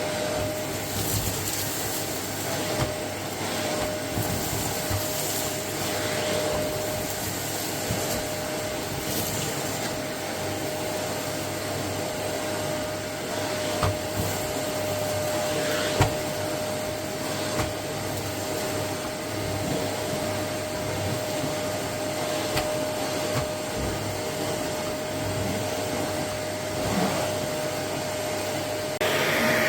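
Goblin Essentials cylinder bagless vacuum cleaner running steadily, a constant whirr with a steady tone through it and scattered clicks as it picks up debris. It gets louder and hissier near the end.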